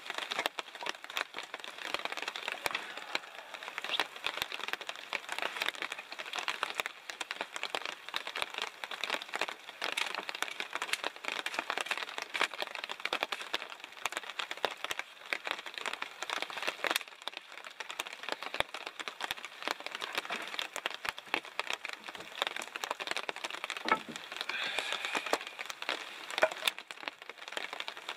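Hatchet chopping and snapping small branches into firewood: a dense, irregular run of sharp cracks and crackles.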